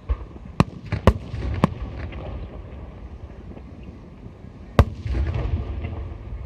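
Aerial firework shells bursting overhead: a run of sharp bangs, three close together in the first two seconds and the loudest a little before 5 s, over a continuous low rumble of distant booms that swells near the end.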